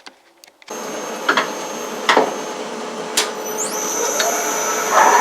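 A metalworking machine starts running steadily about a second in, with a few sharp knocks and a thin high whine that rises in pitch past the middle.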